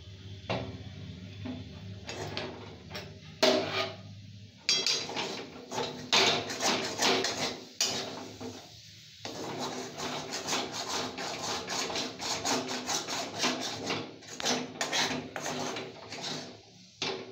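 Metal spatula scraping and knocking against the inside of a steel kadai as dry spiced potatoes are scooped out of the pan. There are a few separate knocks early on, then quick repeated scraping strokes for most of the time.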